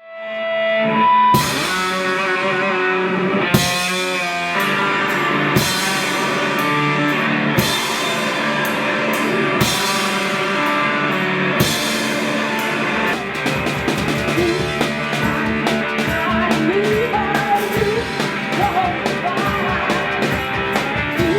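Rock band playing, with electric guitar and drum kit, fading in at the start; drum crashes land about every two seconds.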